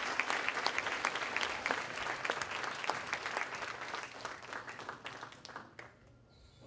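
Audience applauding, the clapping thinning out and dying away over the last couple of seconds.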